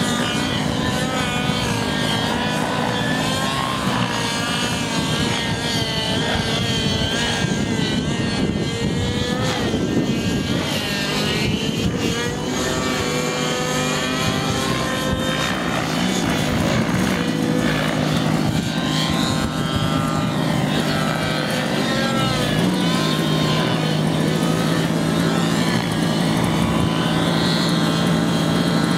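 Radio-controlled scale model helicopters running on the ground. Their motor and rotor whine has several pitches that glide up and down, then settles into a steady hum near the end.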